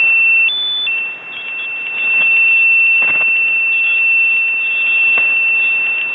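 Shortwave receiver audio on the 40-metre amateur band: steady static hiss with a high steady whistle from a carrier, which steps up in pitch for a moment about half a second in, and a few faint crackles.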